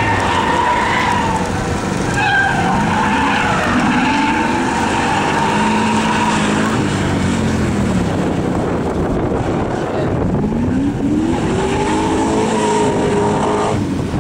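Firenza Can Am rally car's 302 small-block Chevrolet V8 revving hard as the car is driven on a stage, its pitch climbing and dropping again and again, with a long climbing rev near the end.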